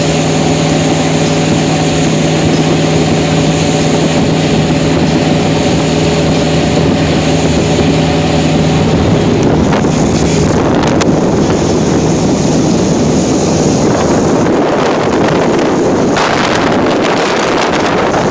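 Motorboat engine running steadily while towing, with water rushing and wind buffeting the microphone. About nine seconds in, the engine's steady tone drops away under louder wind noise.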